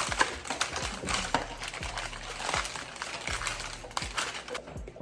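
Crackling and irregular clicking as a baked homemade pizza is cut with a knife instead of a pizza cutter, the crisp crust and parchment paper crunching against the pan.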